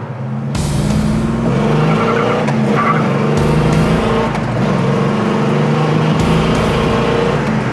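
1970 Pontiac GTO's 455 cubic-inch V8 with four-barrel carburettor running under load, heard from inside the cabin. The engine note breaks at gear changes on the four-speed manual, about three and a half and six seconds in.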